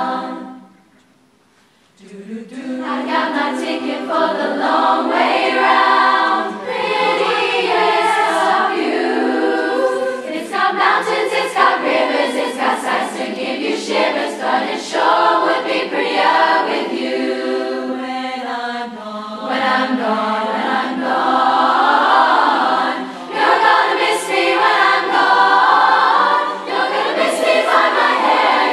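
Large a cappella choir of girls and young women singing in parts. The singing stops just after the start and comes back in together about two seconds in.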